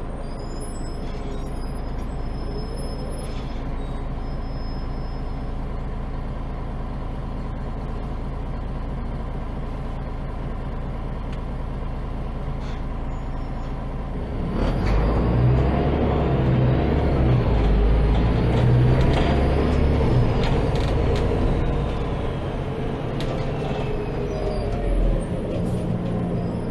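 Interior of a MAN Lion's City G articulated city bus: the engine runs steadily at idle, then about halfway through the bus pulls away and the engine gets louder, with a faint whine that rises in pitch for several seconds and then slowly falls.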